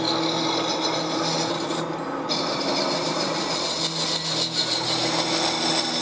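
A lathe turns a cast orin (Buddhist standing bell) while a cutting tool shaves metal from it. It is a steady scraping hiss over the machine's low hum. This is the cutting stage that sets the bell's thickness and shape, and with them its sound.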